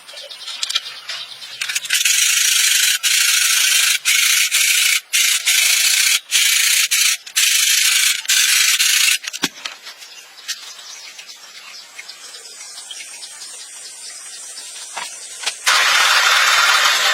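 A loud, steady hiss that stops and restarts several times in quick succession. It falls quieter about halfway through, then starts again louder and fuller near the end.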